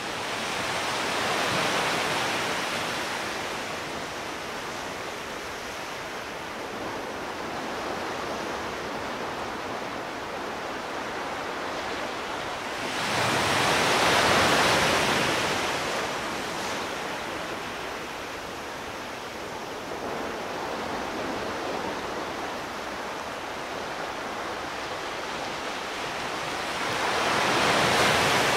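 Ocean surf: waves washing onto a sandy beach, swelling and fading three times about thirteen seconds apart, between steady sea noise.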